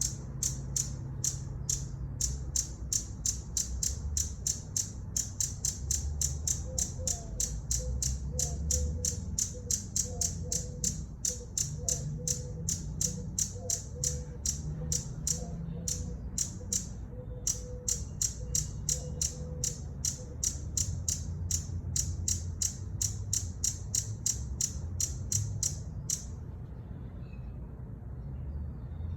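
Hummingbird giving a long series of high, sharp chip notes, about three a second, over a low background rumble; the chips stop shortly before the end.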